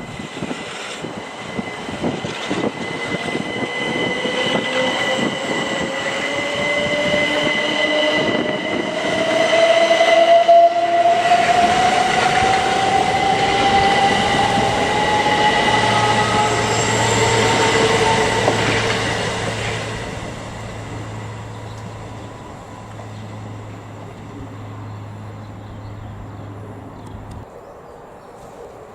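Electric train accelerating past, its traction motors giving a whine that rises slowly in pitch over a steady high tone; it grows loudest about halfway through, then fades, leaving a low steady hum.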